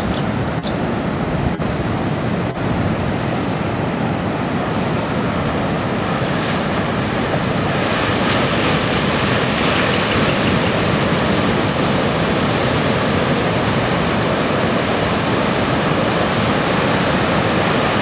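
Rough ocean surf breaking and washing up a sand beach at high tide: a steady rush of noise that turns brighter and hissier from about eight seconds in.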